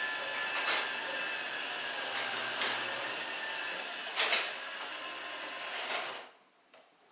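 Garage door closing under its electric opener: a steady running rattle of the motor and rollers in the track, with a few knocks, that stops abruptly about six seconds in as the door shuts.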